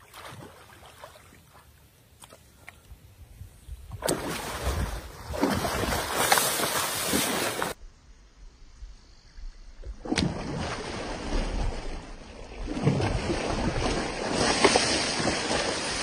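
Shallow muddy water splashing and sloshing as a large hooked gar thrashes at the bank and a man wades in to handle it. It is quiet at first, then rough splashing starts about four seconds in and comes back louder from about ten seconds, with a few sharp knocks.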